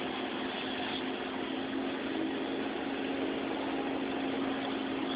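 Steady mechanical hum: a constant low tone over an even hiss that does not change.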